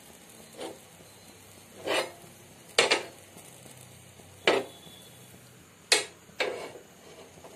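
Heavy iron tawa clanking against the gas stove's burner grate, about six short knocks, as it is held upside down over the flame and turned back over.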